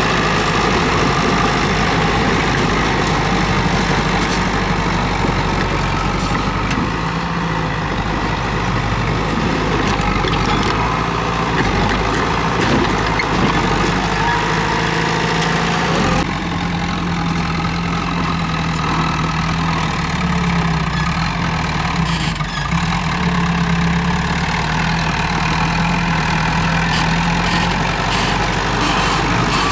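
Komatsu D31P bulldozer's diesel engine running steadily while working. The tone changes abruptly about halfway through.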